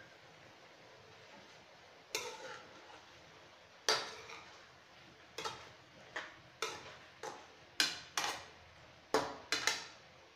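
Metal spoon stirring chicken pieces in a pan, clinking and scraping against the pan's side and bottom: about a dozen short, sharp clinks at uneven intervals, coming faster in the second half.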